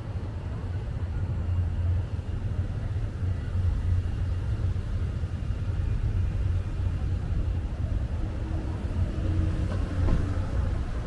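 Wind buffeting the microphone: a strong, constantly fluttering low rumble, with faint outdoor background noise above it.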